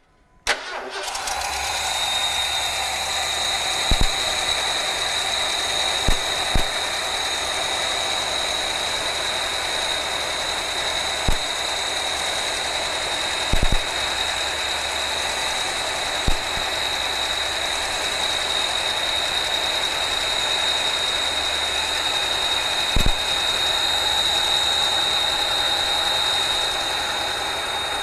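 1987 Ford F-150's V8 starting and then idling roughly, misfiring on two cylinders, while each spark plug wire is grounded out in turn. Over the idle there is a steady high-pitched whine and a sharp click every few seconds.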